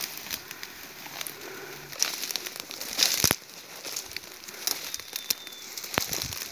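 Tall dry grass and weed stems crackling and rustling as someone walks through them, with irregular crunches and a sharper, louder one about three seconds in.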